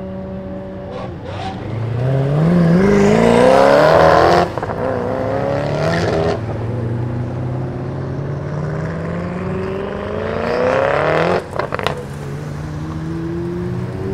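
Koenigsegg Agera's twin-turbo V8 idling, then launching and accelerating hard, its revs climbing with a sharp upshift and a second climb. Later another rising rev is cut off suddenly, with a few crackling pops.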